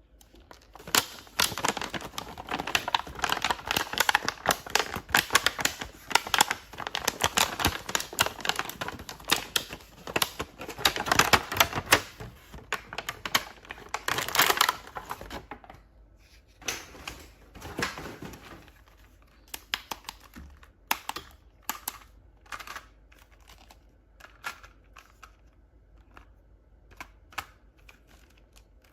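Hands handling plastic toys and packaging: a rapid, irregular run of plastic clicks and rattles for about the first fifteen seconds, then sparser single clicks.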